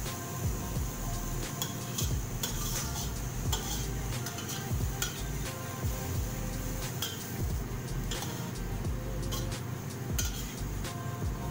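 Long metal spatula scraping and clinking against a steel wok while shredded radish is stir-fried, with irregular clanks once or twice a second over a light sizzle.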